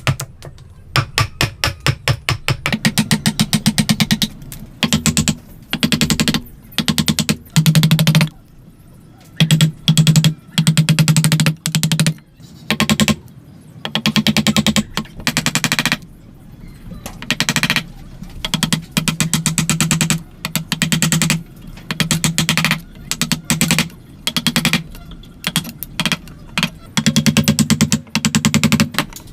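Rapid trains of sharp knocks, many a second, coming in short bursts with brief pauses between them, like tool work on wood.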